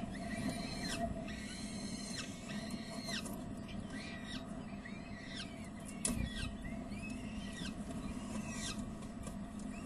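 Peregrine falcon chick begging while being fed: repeated short, high-pitched cheeping calls, a couple each second, over a steady low hum.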